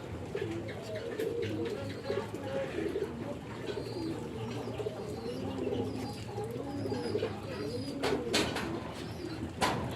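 A flock of farm birds calling, with many soft overlapping calls. There are a few sharp knocks near the end.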